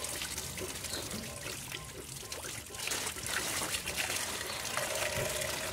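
Engine coolant (antifreeze) trickling and dripping as it drains out of a loosened hose in the cooling system.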